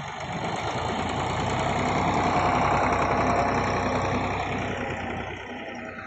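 Bull Power tractor engine running steadily under load while pulling a tillage implement through dry soil. It grows louder to a peak about halfway through, then fades.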